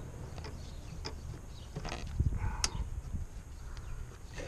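Irregular clicks and knocks of plastic and metal engine parts being handled as the intake manifold is worked down onto the spacer, with a dull thump about two seconds in.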